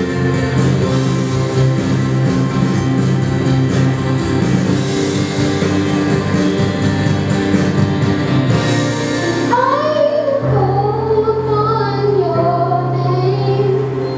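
Instrumental accompaniment music with held chords and guitar; about two-thirds of the way through, a solo singing voice comes in over it, holding and bending long notes.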